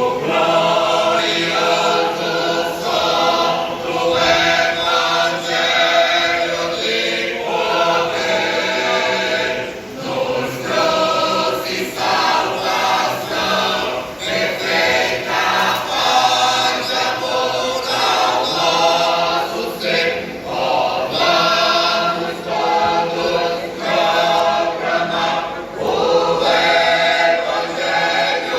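Church choir singing a gospel hymn, many voices together in harmony.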